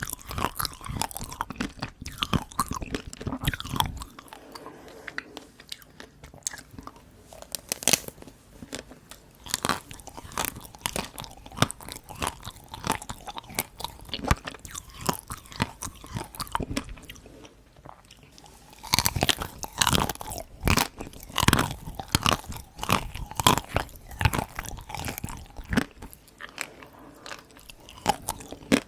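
Close-miked crunching and chewing of dark chocolate Tico ice cream: the hard chocolate coating cracks between the teeth in quick crackly bites. Softer chewing gives way to a run of louder crunches about two-thirds of the way through.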